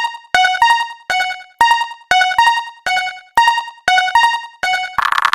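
Japanese railroad crossing warning bell ringing: an electronic ding struck about twice a second, alternating between two pitches, each stroke dying away. Near the end a buzzing cartoon sound effect cuts in.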